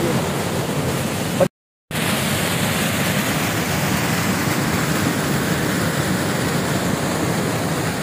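Rushing water of a shallow stream cascading over rocks, a steady even rush. The sound drops out completely for a split second about one and a half seconds in.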